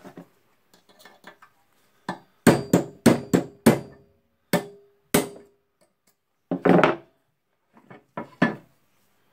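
Hammer striking a steel pin punch against the ring spring on a rotary hammer drill's tool holder clamped in a vise, driving the ring spring off. About a dozen sharp metal-on-metal blows in irregular groups, starting about two seconds in; several ring briefly.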